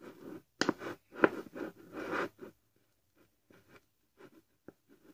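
Small spoon scraping and stirring in a small bowl, working a sticky dough of cornstarch, shampoo and oil: a quick run of scrapes over the first couple of seconds, then only a few faint ticks.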